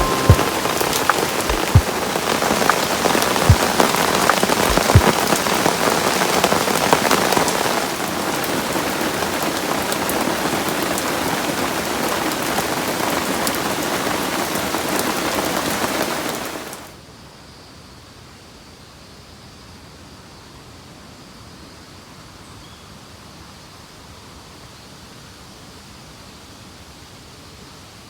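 Heavy rain falling steadily, with scattered louder drops striking in sharp ticks and a few dull thumps. About 17 seconds in, the sound drops suddenly to a faint hiss.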